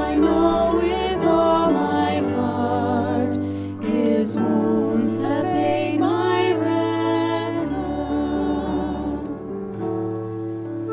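Hymn sung by women's voices with vibrato, accompanied by woodwinds and piano with sustained chords.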